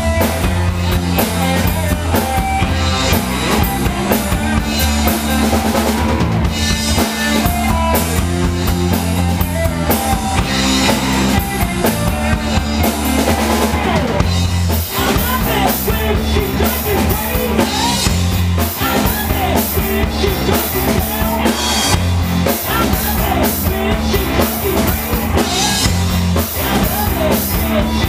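Live alternative rock band playing in a small room: drum kit, electric guitar and bass guitar together, with the cymbals getting busier about halfway through.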